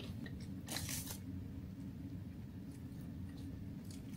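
Quiet eating of crispy fried chicken: a short crunchy bite about a second in, then a few faint clicks, over a steady low room hum.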